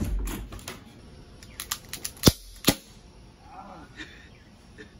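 Two quick shots from a CO2-powered Glock 19 BB pistol, less than half a second apart, with a few faint clicks just before them. A short vocal sound follows about a second later.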